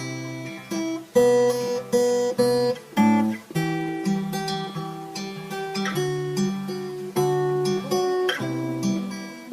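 Song intro played on acoustic guitar, with chords struck and left ringing, changing every second or so; no singing.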